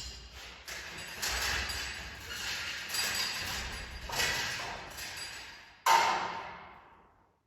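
A series of hard knocks and clinks from objects being handled, ending with one sharp clank about six seconds in that rings out for over a second.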